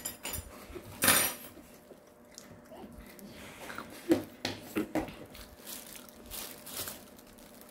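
Eating sounds: disposable plastic gloves crinkling in scattered short bursts, the loudest about a second in. A cluster of soft mouth and handling noises follows around the middle as a soft fried-tofu rice pouch is eaten.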